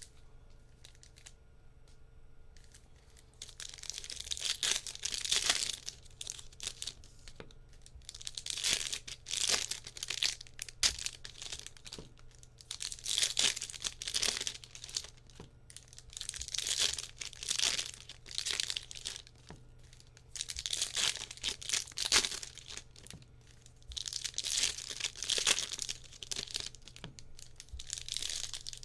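Foil trading-card pack wrappers being torn open and crinkled, in about seven separate bursts a few seconds apart.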